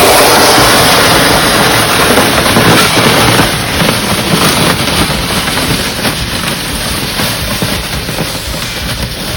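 A vehicle driving off, loud at first and fading gradually as it moves away.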